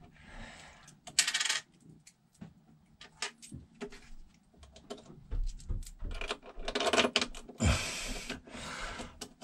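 Metal battery-cable lugs and terminal hardware clinking and rattling as they are handled, mixed with the rub and rustle of heavy cables being worked into place. The loudest clinks come about a second in and again near the end.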